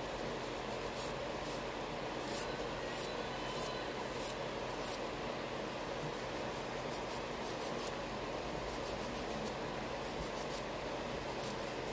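Short, repeated rasping strokes of a nail file across fingernails, coming in quick runs, over the steady hum and whoosh of a nail dust collector's fan.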